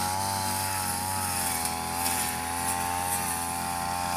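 Backpack brush cutter's engine running steadily at cutting speed as it mows long grass, its pitch wavering slightly.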